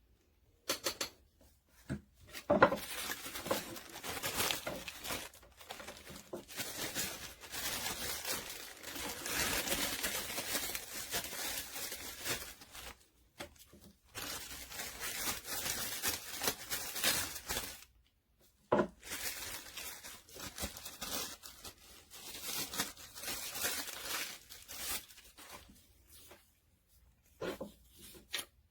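Rustling, tearing sounds of material being handled, in long noisy stretches broken by a couple of short pauses.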